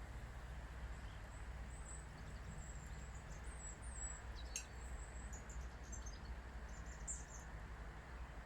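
Small birds in a tree giving faint, thin, high-pitched chirps and twitters, scattered and more frequent from about two seconds in. Underneath is a steady low background rumble.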